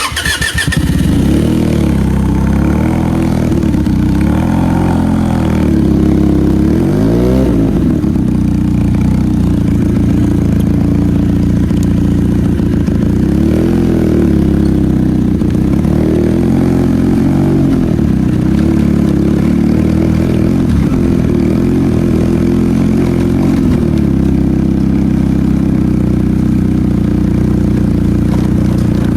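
Benelli motorcycle engine running through its stock exhaust. It starts sharply, the revs rise and fall a few times in the first half, then it settles into a steadier run.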